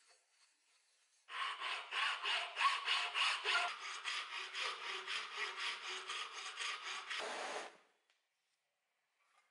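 Flat steel hand file rasping over a wooden workpiece held in a vise, in quick even strokes of about four a second. It starts about a second in and stops abruptly near the end.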